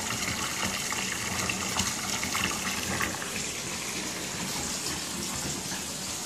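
Bathtub faucet running steadily, a stream of water pouring into a jetted tub partly filled with foamy water.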